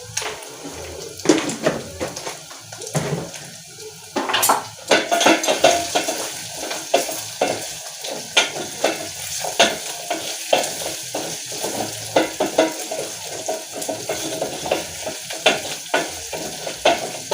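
Beef frying in oil in a metal sufuria, sizzling steadily on high heat, while a spoon stirs and scrapes against the pot with frequent clicks.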